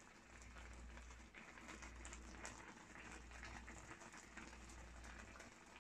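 Near silence: faint crackling and ticking of coconut milk simmering under taro-leaf pinangat parcels in a pan, over a low hum.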